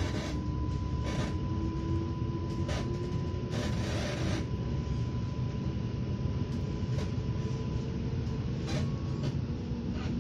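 Inside a moving electric commuter train: a steady low rumble of wheels running on the track, with a thin steady whine over it and a few short hissing surges.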